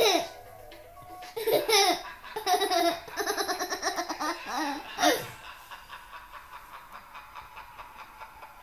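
Toddler laughing: several high-pitched bursts of belly laughter, one a quick run of short pulses, dying away about five seconds in.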